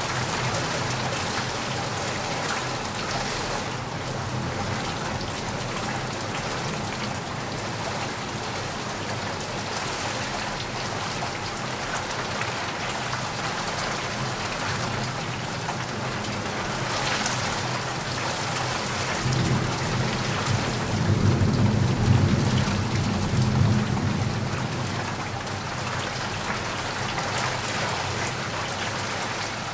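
Steady rain falling, with a roll of thunder rumbling low about two-thirds of the way in, building and then fading over several seconds.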